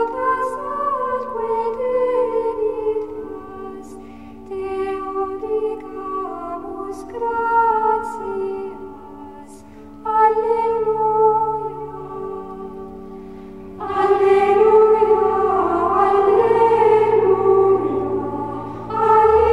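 Slow music with long held notes changing one after another, growing fuller and louder about two-thirds of the way through.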